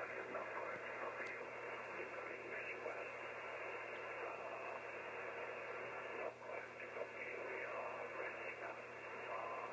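Amateur radio transceiver on 6 m single sideband giving out a steady hiss of band noise, with the garbled, hard-to-follow voice of the distant station under it, its signal smeared by aurora propagation.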